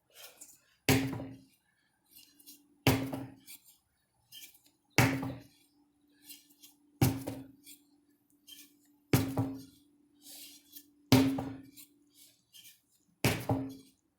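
A 25 lb sledgehammer striking over and over: seven heavy strikes about two seconds apart, each leaving a brief low ring.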